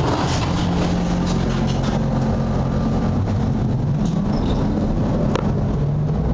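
Inside a ZIU-9 trolleybus under way: the electric traction motor's hum over road and body rumble, with a single sharp click about five seconds in.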